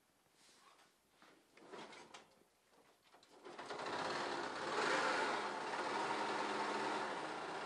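A few faint clicks, then about three and a half seconds in a Honda Super Cub's small single-cylinder four-stroke engine starts and runs steadily, swelling briefly about a second later. It is run after a new cam chain, guide roller and tensioner roller were fitted, with the abnormal engine noise still not cured.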